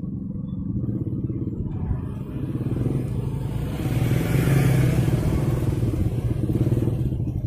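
Motor scooter engine approaching and passing close by. It is loudest about four to five seconds in, then eases.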